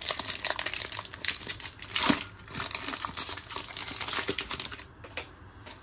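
Foil Pokémon booster pack wrapper being crinkled and torn open: a dense crackle of plastic foil, with a louder tear about two seconds in, dying away near the end.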